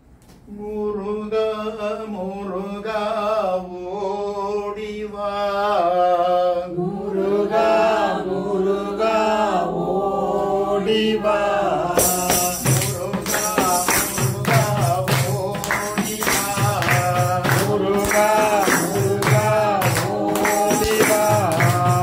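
A man sings a Hindu devotional bhajan, alone and unaccompanied at first; about halfway through, a hand-held tambourine comes in with a steady jingling beat under the continuing singing.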